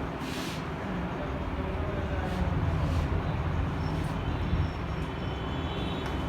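Steady low engine rumble, growing somewhat louder after about a second, with a few brief clicks.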